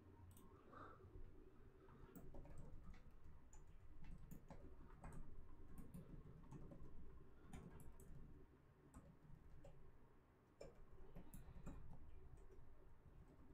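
Faint, irregular clicks and taps of a computer mouse and keyboard being worked at a desk, over low room hum.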